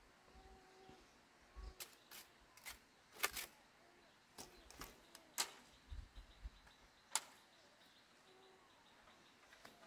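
Irregular sharp knocks and taps, about a dozen scattered over several seconds, at a low level, with faint short calls in the background.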